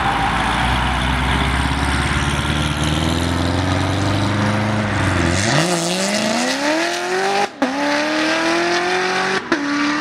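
C7 Chevrolet Corvette's V8 pulling away at low revs, then accelerating hard from about halfway in, the revs climbing steeply. Two quick upshifts, about two seconds apart, each briefly cut the sound before the revs climb again.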